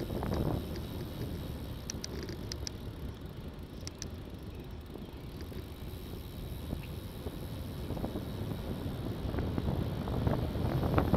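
Wind rushing over a bicycle-mounted camera's microphone while riding, mixed with tyre and road noise, growing louder toward the end as the bike gathers speed. A few light ticks about two seconds in.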